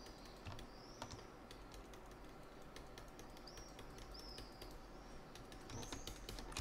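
Faint, scattered clicks of a computer keyboard and mouse. Several short, high chirps rise and fall in the background, like a small bird.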